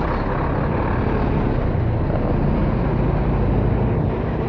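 Riding noise from a Honda Beat FI scooter on the move: a steady rush of wind on the microphone with the scooter's engine running evenly underneath.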